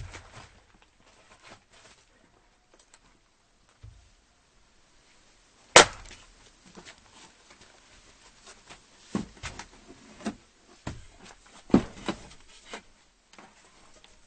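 Axe chopping firewood: a sharp strike about six seconds in and another near twelve seconds, with lighter knocks and clatter of wood in between.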